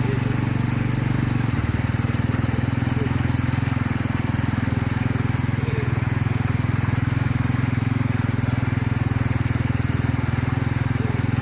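Motor vehicle engine running steadily, a low drone with an even rumble; its note shifts slightly about a second and a half in.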